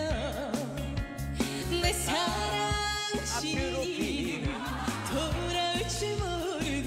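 A young woman singing a Korean trot song over a band backing track with a steady pulsing bass, her held notes wavering in a wide vibrato.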